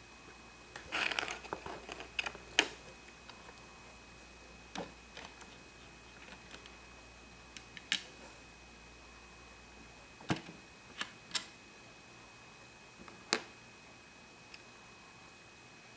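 Small plastic toy pieces clicking and tapping as they are handled and fitted onto a plastic playset: a brief rustle about a second in, then single sharp clicks every second or two.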